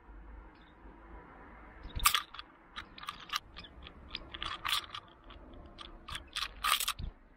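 Japanese white-eye pecking at a halved pomelo close to the microphone: a run of small, sharp, irregular ticks and crunches, a few a second, starting about two seconds in and stopping near the end.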